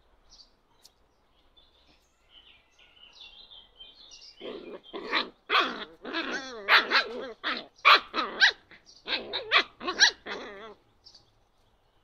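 Puppies barking in a quick run of about a dozen high-pitched yaps, starting about four seconds in and stopping shortly before the end. Faint squeaky whimpers come before them.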